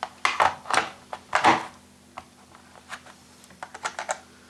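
Small hand tools from a phone-repair kit being handled, clicking and tapping like typing: several louder knocks in the first second and a half, then scattered light clicks.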